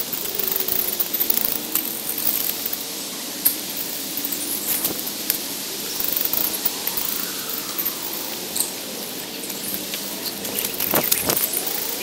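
Outdoor ambience: a steady hiss with scattered clicks and faint sounds that rise and fall in pitch.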